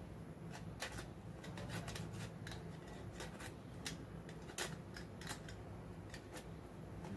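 Utility knife blade cutting the thread stitching of a hockey skate's toe cap: a string of short, sharp snips and clicks at irregular intervals.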